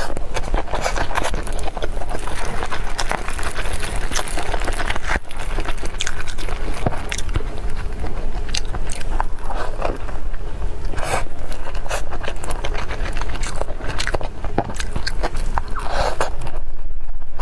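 Close-miked biting and chewing of fresh Vietnamese spring rolls, soft rice paper rolls filled with rice vermicelli and vegetables, heard as a dense run of small clicks and smacking mouth sounds.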